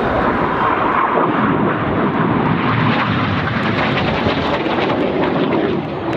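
BAE Hawk T1 jet trainers flying past, a steady loud rushing of their Adour turbofan engines that dips briefly near the end.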